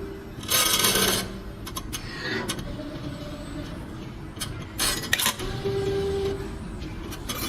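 CNC wire bending machine running through a cycle: steady motor whine and hum, with two short hissing bursts about half a second in and about five seconds in, and scattered clicks and clinks.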